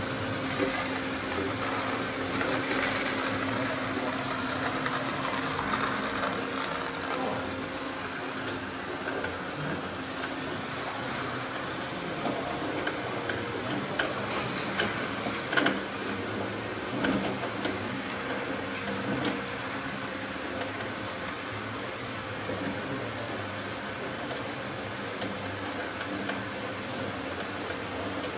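Small electric motors and gearboxes of radio-controlled construction models whirring steadily, with a few short clicks and knocks.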